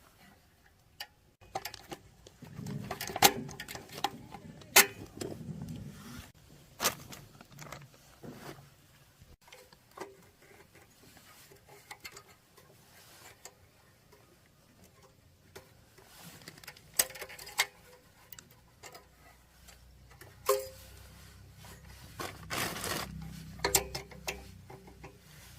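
Scattered clicks and knocks of hand tools and metal engine parts being handled and set down, the two loudest about 3 and 5 seconds in, with rougher scraping stretches early on and again near the end.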